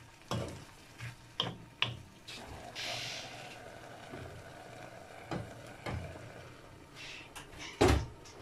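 A wooden spatula knocks a few times against a non-stick frying pan while chayote stir-fries in it with a faint sizzle, then a glass pan lid is set on. A sharper knock comes near the end.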